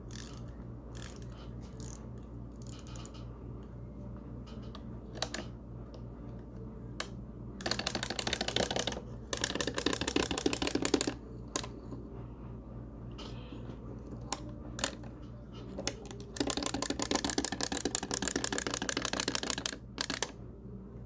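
Clockwork wind-up toy bunny: scattered clicks as its key is twisted, then two spells of rapid clattering, each about three seconds long, as the spring runs down and the toy hops.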